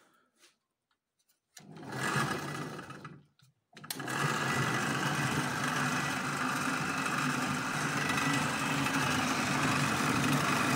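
Belt-driven bench drill press with a three-phase motor rewired from 380 V delta to 220 V on a capacitor, switched on a little over a second in and dying away, then switched on again about four seconds in and running steadily with a hum and whir.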